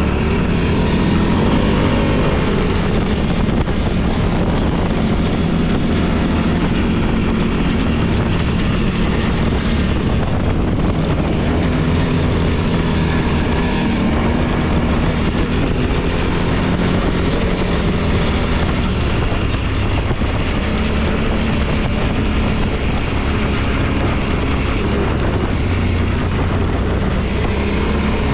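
Off-road vehicle's engine running steadily under way along a trail, a continuous drone that rises and falls slightly in pitch with the throttle.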